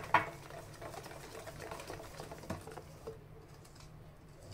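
Wire whisk beating flour into cake batter in a metal mixing bowl by hand: a steady, rapid rattle of the wires against the bowl. Two sharp knocks come right at the start.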